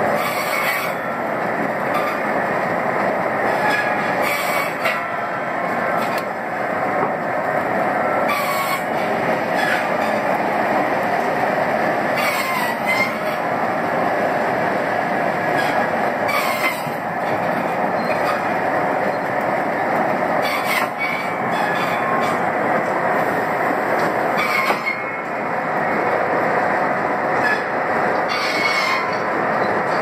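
Steam sawmill machinery running: a steady mechanical din with high metal squeals that come and go, and a short louder surge about every four seconds.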